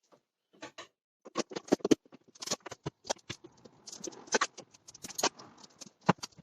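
Plastic body-panel clips and trim panels being pushed into place on a car: a quick, irregular run of sharp clicks and knocks.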